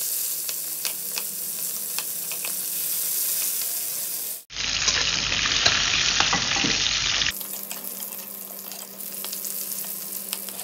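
Free-range chicken pieces frying in hot oil in a wok: a steady sizzle with scattered crackling pops, louder for about three seconds in the middle.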